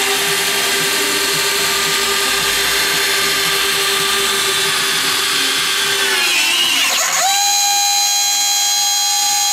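Motor-driven retractable landing gear of a large radio-control Corsair model whining steadily as the main gear rotates and folds into the wing. A little over six seconds in the pitch dips, then settles on a higher steady whine.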